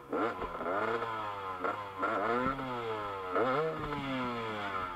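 Two-stroke KTM EXC 250 dirt-bike engine revved in about three bursts, the pitch rising and falling back each time.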